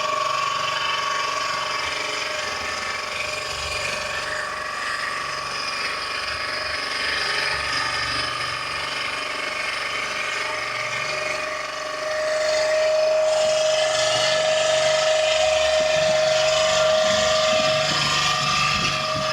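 A small engine running steadily with a whine, getting louder about twelve seconds in.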